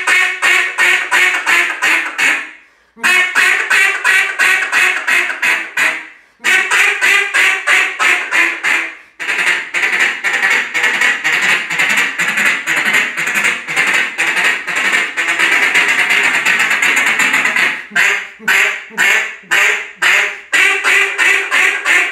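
Red-Label cut-down duck call, a single-reed call with a threaded keyhole insert, blown in loud mallard hen quacking. Several quick strings of quacks are broken by short pauses for breath. From about ten to eighteen seconds in comes one long, unbroken run of very fast notes, and then slower single quacks near the end.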